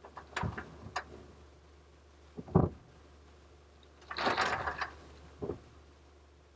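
Compost tipped from a digger's bucket into a pickup truck's load bed, heard from inside the cab: a few knocks, one heavy thump about two and a half seconds in, then a rush of falling soil about four seconds in and a last thud.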